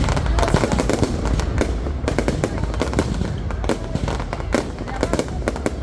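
Fireworks display going off: rapid, overlapping bangs and crackles over a continuous low rumble.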